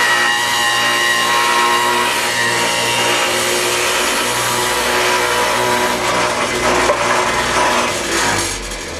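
Table saw with a dado blade running and cutting handle recesses into pine bee-box boards, a steady motor whine under the noise of the cut. The level falls away near the end as the saw is shut off.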